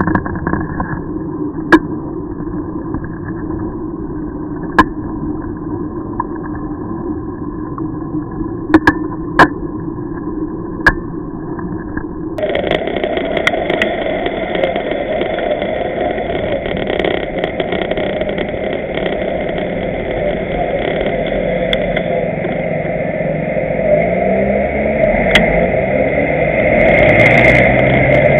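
Riding noise picked up by a bicycle-mounted camera: steady wind and road rumble with several sharp knocks as the bike jolts over the pavement. About twelve seconds in the noise turns brighter and louder, and near the end a motor engine runs close by.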